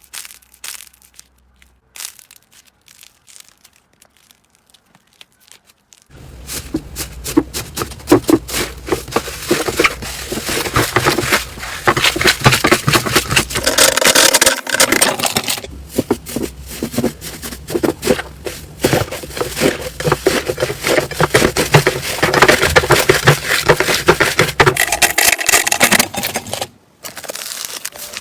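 Slime being squeezed and kneaded by hand, with dense crackling and popping. It starts abruptly about six seconds in, after a few faint clicks, and cuts off shortly before the end.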